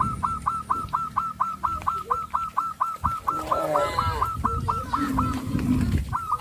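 A fast, even run of identical chirps, about five a second, stops about four and a half seconds in and comes back briefly near the end. Over it, farm fowl such as geese give lower honking calls, with a held call about five seconds in.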